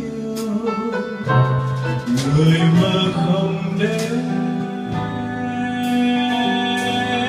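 Live band playing a slow ballad, a male singer holding long notes over drums, with cymbal strikes scattered through.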